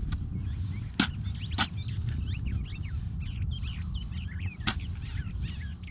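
Small birds chirping and twittering, with many short quick calls, over a steady low rumble. Three sharp clicks or knocks cut through, about a second in, shortly after, and near the end.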